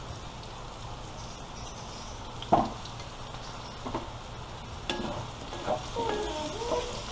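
Potatoes, carrots, onion and bell pepper sizzling in oil in a metal wok. There is one sharp knock about two and a half seconds in, then a wooden spatula stirring and scraping against the pan in the last couple of seconds.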